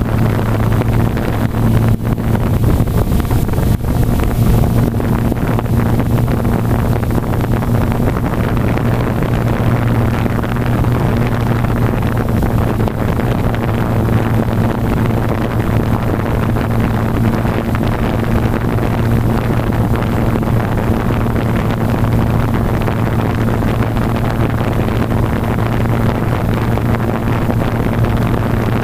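Blade 350 QX quadcopter's motors and propellers running in flight, a steady hum heard from the camera mounted on the aircraft, with propeller wash rushing over the microphone.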